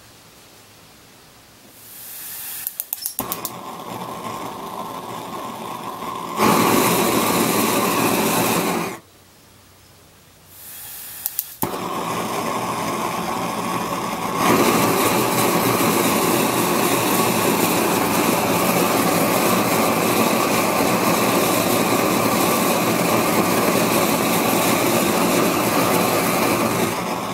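Homemade single-jet high-pressure propane burner being lit and run: gas hissing, a quick run of clicks from its battery-powered electric spark igniter, then the flame catches and burns with a loud steady rush that gets louder as the valve is opened further. It goes out near nine seconds in, is relit the same way with a few clicks about two seconds later, turned up again and burns steadily until it is shut off at the end.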